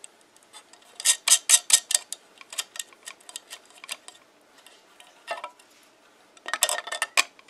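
Small steel lock nut and star lock washer clicking and clinking against a machine screw's threads and a crimped ring terminal as the nut is spun down by hand, making a ground connection. The clicks come in several quick clusters with short pauses between them.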